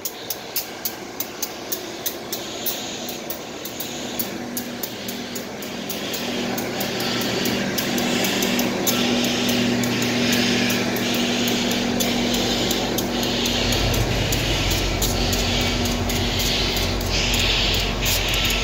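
Heritage passenger coaches rolling past close by, their steel wheels clicking steadily over the rail joints over a low rumbling hum. The sound grows louder through the first half.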